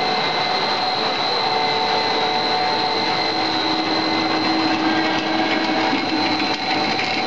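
Plastic twin-screw extruder machinery running: a loud, steady mechanical hum with several held whining tones, the highest a thin high whine.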